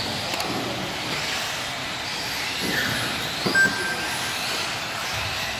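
Electric 1/10 RC buggies, among them a Team Associated B6, racing around the track: the whine of their electric motors rising and falling as they accelerate and brake, over a steady hum of wheel noise. A short high beep sounds about three and a half seconds in.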